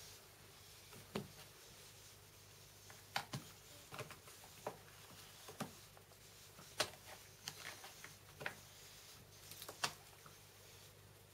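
Scattered light taps and clicks, about a dozen, irregularly spaced, as the pet paws and climbs at a small metal-framed chair and wire cage. A faint steady low hum runs underneath.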